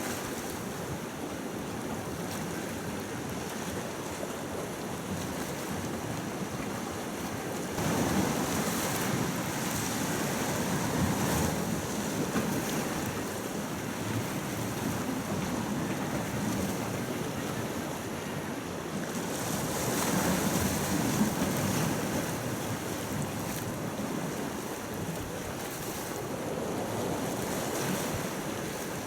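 Gentle sea waves washing along the shore, with wind rumbling on the microphone. The wash swells louder about eight seconds in and again around twenty seconds in.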